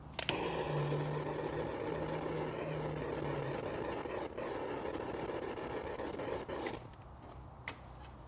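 A machine running steadily, switched on with a click near the start and stopping abruptly about a second and a half before the end, with a low hum during its first few seconds.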